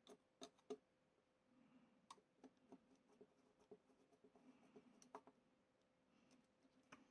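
Faint, irregular small clicks and ticks of a screwdriver working a screw in a model kit's metal panel, loosening it so a part can be fitted. A few sharper clicks come in the first second and again around two and five seconds in.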